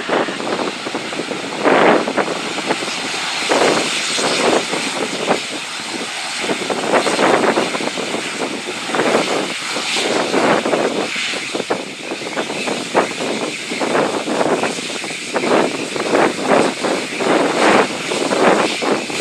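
ATR 42 twin turboprop engines running as the aircraft taxis, heard as a rough, uneven rushing with many irregular surges.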